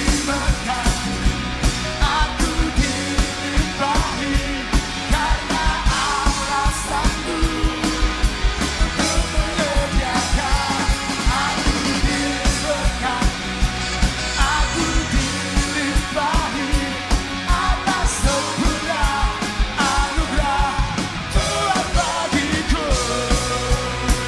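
Live worship band playing an upbeat rock-style praise song, the drum kit prominent with a steady driving beat and a melody line over the band.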